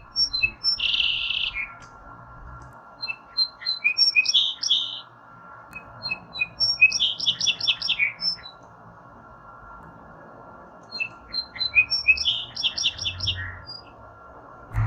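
A songbird singing the same song four times, every three or four seconds: each a quick run of short, sharp notes ending in a buzzy trill.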